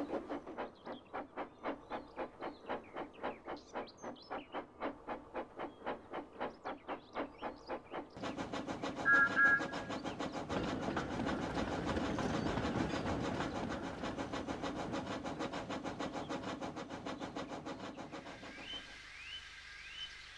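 Steam locomotive puffing with a steady exhaust beat of about four to five chuffs a second, which turns denser and louder about eight seconds in. A brief double toot of the whistle sounds about nine seconds in. The chuffing fades away near the end, as three short rising chirps like birdsong come in.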